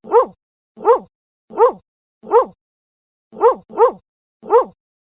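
A dog barking: seven short, alike barks with silence between, mostly evenly spaced under a second apart, with a quick double bark about three and a half seconds in.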